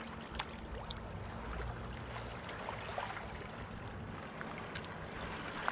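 Shallow lake water lapping and sloshing lightly around hands holding a smallmouth bass under the surface to release it, with a few small splashes.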